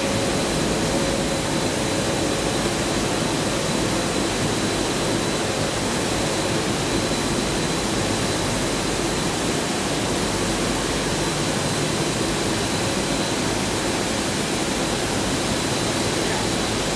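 Steady hiss and hum of factory machinery, with a faint high whine held on one pitch.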